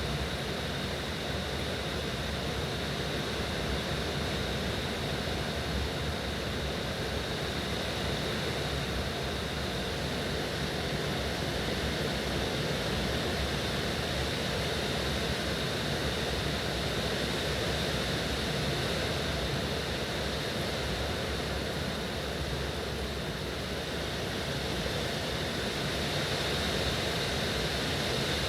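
Heavy rain falling in strong wind, a steady unbroken rushing noise.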